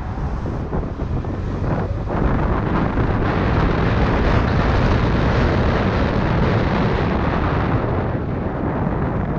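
Wind rushing over the microphone on a moving Yamaha Tricity 125 scooter, with its single-cylinder engine running underneath. The rush grows louder about two seconds in as the scooter picks up speed.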